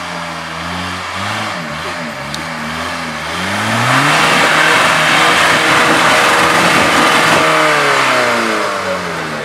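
Suzuki Samurai 4x4's engine working under load as the jeep crawls up a steep rutted trail. Its pitch wavers up and down for the first few seconds, then it revs hard, holds high and loud for about three seconds, and drops back near the end.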